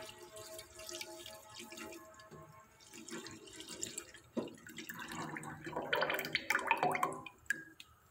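Milk sloshing and dripping in a steel saucepan as a spatula stirs it, with faint irregular clicks and scrapes. There is one sharp tap against the pan about four and a half seconds in.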